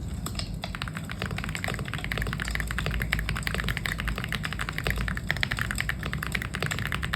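Fast, continuous typing on an Aula F75 mechanical keyboard fitted with Furycube Contour keycaps: a dense run of key clacks.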